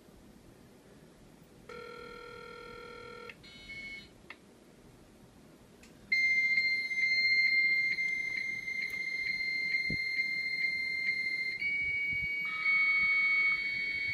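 300-baud Bell 103 dial-up modem call setting up. After a short steady tone and a few beeps on the line, the answering modem sends a loud, steady, high answer tone. At about 12.5 s the Micromodem IIe's lower originate carrier joins it, and the two tones together are the handshake that establishes the connection.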